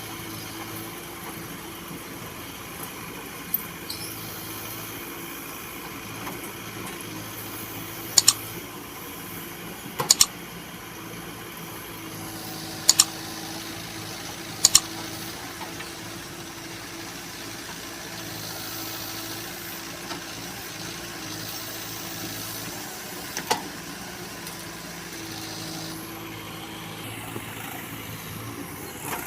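Backhoe loader's diesel engine running steadily, with several sharp knocks, some in quick pairs, scattered through.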